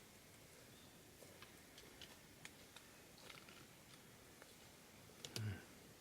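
Near silence, with faint scattered clicks and a brief low hum about five seconds in.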